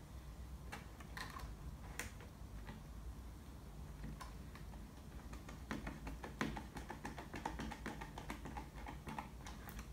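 Faint, irregular small clicks and light knocks from a hand screwdriver driving a self-tapping screw to fix a plastic energy-chain end in place, the clicks coming thicker in the second half.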